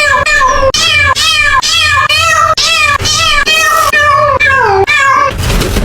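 Rapid string of high cat meows, about three a second in a sing-song rhythm, the last one sliding down in pitch. Near the end a loud, noisy rush cuts in.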